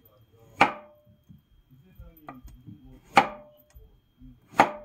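Kitchen knife slicing through a zucchini onto a wooden cutting board: three sharp chops, the first about half a second in and the last two close together near the end, each with a brief ring.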